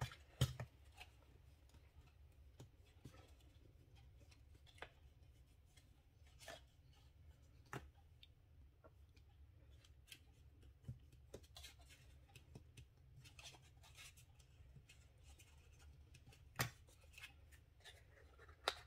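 Faint, scattered clicks and taps of cardstock paper boxes being handled and adjusted, about nine sharp ticks spread irregularly over a quiet, low room hum.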